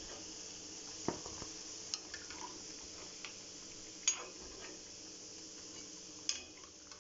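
Metal slotted ladle clinking against a kadai as fried chana dal vadas are scooped out of hot oil, over a steady sizzle of deep-frying. A few sharp clinks land about one, two, four and six seconds in, the loudest at about four seconds.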